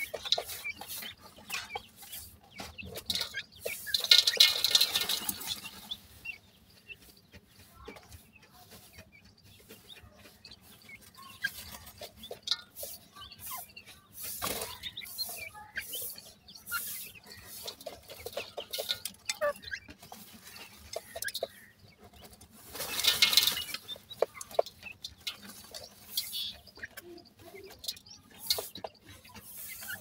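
Young francolins (teetar) dust-bathing in a basin of dry soil: scattered clicks and patters of scratching and pecking in the grit, with soft clucking calls. Two louder rustling bursts of wings shaking through the dust, about four seconds in and again past the middle.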